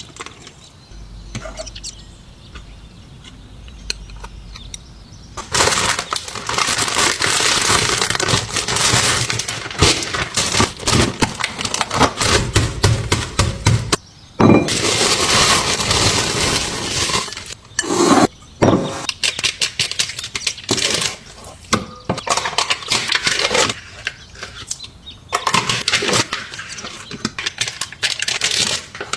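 Food-preparation handling sounds: loud, dense crinkling and cracking starts about five seconds in and goes on with many sharp clicks and short pauses.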